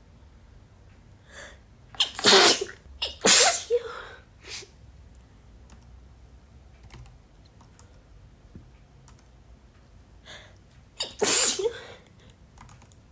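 A woman sneezing from a head cold: two loud sneezes close together about two seconds in, and another near the end. Faint computer-keyboard typing clicks come in between.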